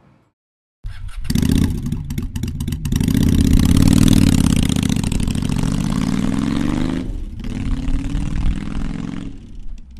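Motorcycle engine running and accelerating hard: it comes in suddenly about a second in and its pitch climbs steadily. The sound dips briefly about seven seconds in, then climbs again.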